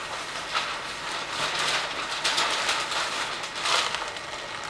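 Paper rustling and crinkling in several short bursts as a steamed bundle of silk scarves is unrolled from its paper wrapping.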